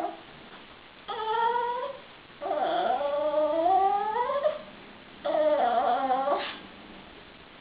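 Shih-tzu dog 'talking': three drawn-out pitched calls, the middle one the longest and rising in pitch.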